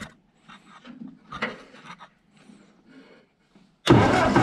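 An 8N Ford tractor's starter turns over the four-cylinder flathead engine. The cranking starts suddenly and loudly near the end, rolling the distributor cam so the newly set breaker points can be checked. Before it there are only faint handling sounds.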